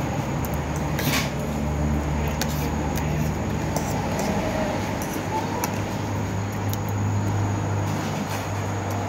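Vehicle engine running with road noise, a steady low hum that shifts up in pitch about halfway through.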